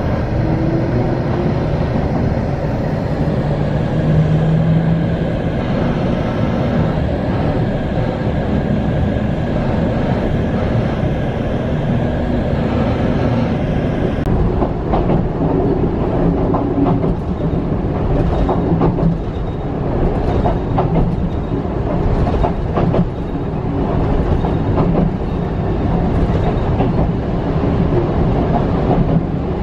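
Electric train heard from inside the car, pulling away and picking up speed: a motor whine climbs in pitch in the first few seconds, over steady running noise. From about halfway the wheels clack over rail joints at an irregular pace.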